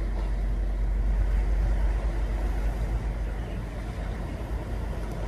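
Wind buffeting the microphone: a steady low rumble with a broad hiss over it.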